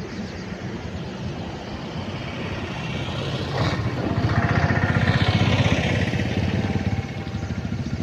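Motor vehicle engine and road noise, swelling louder for about three seconds in the middle and then falling back.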